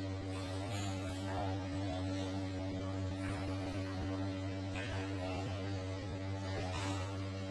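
Steady low electrical hum with several steady overtones, unchanging throughout, with a few faint soft noises now and then.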